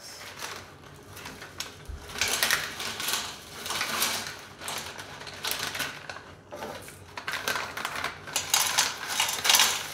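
Crinkling and rustling of stiff MRE plastic ration pouches being handled and torn open, in irregular crackly bursts, with light clatter against metal mess trays.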